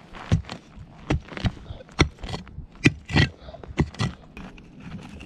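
A pickaxe chopping into dry, hard soil: about ten separate blows, each with a short scrape of earth, over the first four seconds, digging out a metal detector signal.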